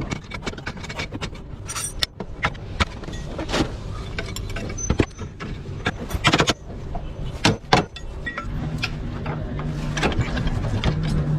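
Irregular metal clanks and knocks of tools being worked on a car. They sit over a low rumble, and a steady low hum grows louder from a little past the middle.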